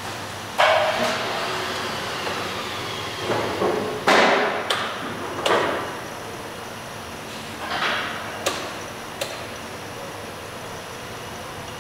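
Belovac E-Class vacuum forming machine working through its forming cycle: a run of sudden clunks and short hissing bursts that fade quickly, the loudest about four seconds in, followed by two sharp clicks near the end.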